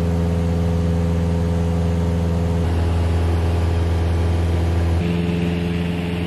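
Cessna 172 Skyhawk's piston engine and propeller droning steadily in cruise, heard inside the cabin. The drone's tone changes abruptly about halfway through and again near the end.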